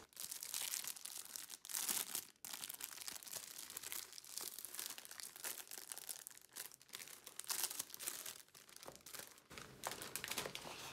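Clear plastic sleeve crinkling and rustling in irregular spurts as a rolled canvas is slid out of it by hand.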